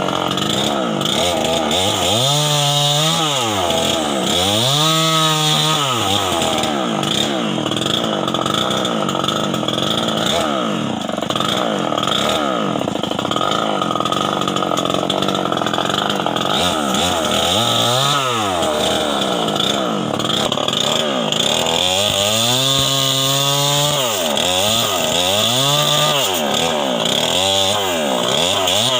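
Stihl 070 chainsaw's large two-stroke engine running hard throughout, its revs dropping and climbing again several times, most clearly a few seconds in and again near the end.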